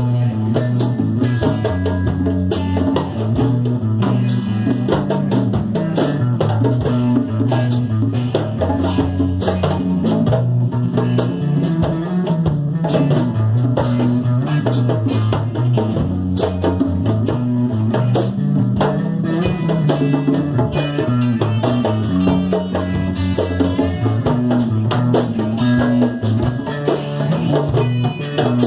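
Live instrumental jam: an amplified electric guitar plays a repeating low, stepping riff over steady djembe hand drumming, with sharp drum hits throughout.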